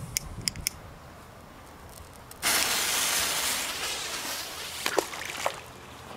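A few small clicks, then a K-P16 flash firecracker's fuse catching with a sudden loud hiss that fades over about two seconds. About five seconds in it plops into the water, with a second smaller splash just after.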